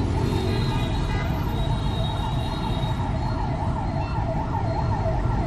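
Emergency-vehicle siren sweeping quickly up and down in pitch, growing clearer over the last few seconds, over a steady low rumble of street traffic.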